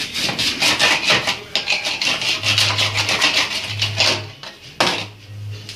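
A saw cutting through a fish in fast back-and-forth strokes, which stop about four seconds in, followed by one sharp scrape near the end.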